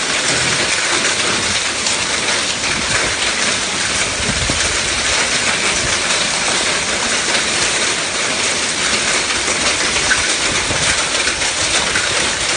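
Heavy rain mixed with hail falling and pelting surfaces: a loud, steady, dense hiss studded with many small ticks.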